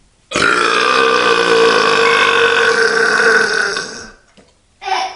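A man's long, loud belch, starting abruptly and held at a steady pitch for about three and a half seconds before tailing off. A brief second burst follows near the end.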